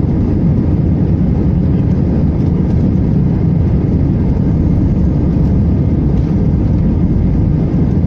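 Aircraft noise: a steady, loud, low drone of engines and airflow, holding an even level with no change in pitch.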